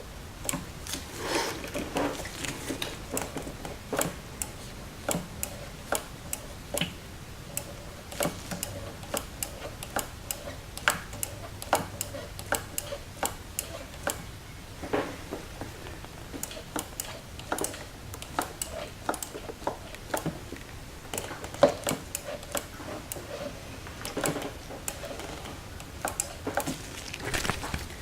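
Irregular light clicks and taps, one or two a second, from the front brake lever of a Yamaha YZF-R6 being pumped. This pushes the caliper pistons back out against the freshly fitted pads.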